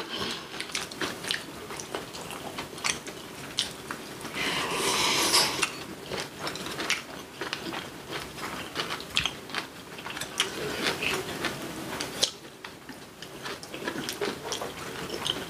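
Close-miked chewing and biting of rolled omelette and kimchi, with soft wet mouth sounds and frequent small clicks of chopsticks and spoons on bowls. About five seconds in there is one louder noisy sound lasting about a second.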